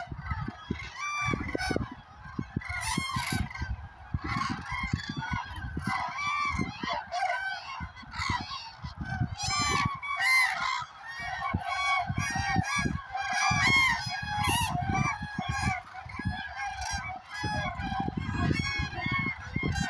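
A large flock of common cranes calling: many overlapping loud, trumpeting calls at once, rising and falling in a constant clamour. Irregular low rumbling thumps run underneath.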